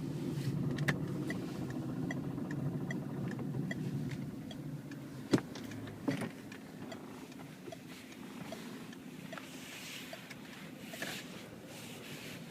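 Citroën C3 HDi diesel car with its engine running, with a regular light ticking about two to three times a second. Two sharp clicks come about five and six seconds in, after which the engine sound is lower.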